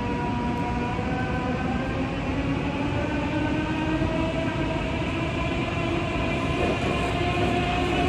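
AVE S-103 high-speed train's electric traction drive whining in several tones at once over a steady rumble, some of the tones slowly rising in pitch. This is the drive working at low speed under the station's speed limit.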